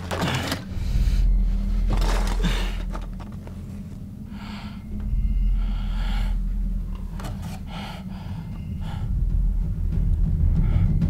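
A man's heavy, ragged breathing, with sharp gasps every second or two, over a low steady drone.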